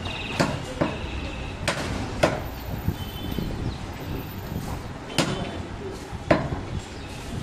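Irregular sharp knocks, about half a dozen spread over several seconds, over the steady background din of a busy meat market.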